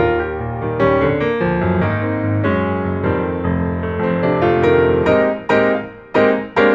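Background music played on a keyboard with a piano-like sound, with three short, separated chords near the end.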